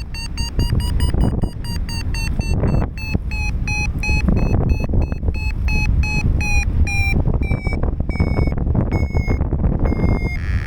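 Paraglider variometer beeping its climb tone: short high beeps, about five a second at first, that slow and drop slightly in pitch as the climb weakens, over wind noise on the microphone.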